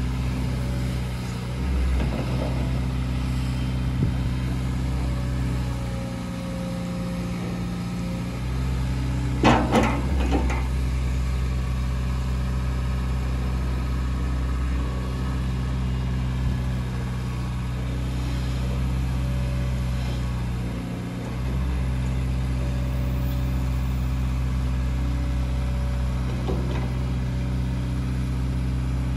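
JCB JS190LC tracked excavator's diesel engine running steadily while the hydraulic boom and dipper are worked out and back, the engine note dipping briefly twice. A short cluster of knocks and clatters about a third of the way in.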